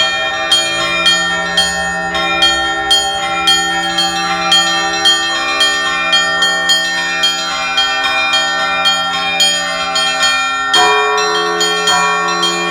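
Russian Orthodox church bells rung in a festive peal: small bells struck quickly, several strokes a second, over the ringing of larger bells. A different, lower set of bell tones comes in near the end.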